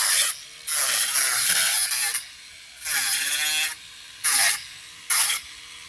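Cordless angle grinder cutting through steel wire-mesh fencing in repeated bursts: one long cut, then several shorter ones. The motor's pitch sags as the disc bites into the wire and recovers between cuts.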